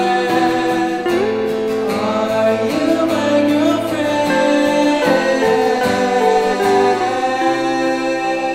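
A song: singing over guitar accompaniment.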